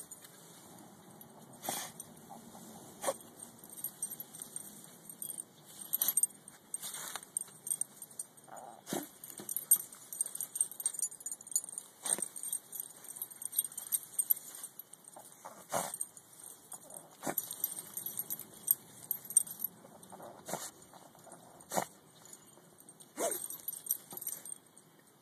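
Dachshund digging and rooting with its nose and paws in pine straw and loose soil after a mole: irregular rustling and scratching with sharp little clicks, and the dog snuffling.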